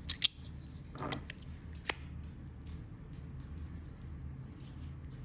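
Metal track slider fidget toy clicking sharply a few times in the first two seconds as it is pushed and knocked, jammed instead of sliding.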